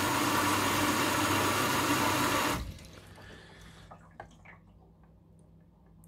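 Water rushing into a Hoover DXOA69HC3B washing machine's drum during the filling stage of its Clever Check self-test. The fill stops suddenly about two and a half seconds in, leaving a low hum and a few faint clicks.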